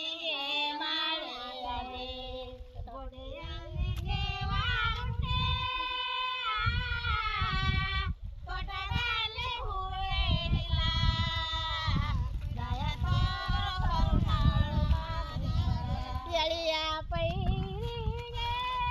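A high-pitched female voice singing a rural Karnataka folk song of the kind sung while transplanting rice, in long held notes that waver and glide between phrases, over a low rumble.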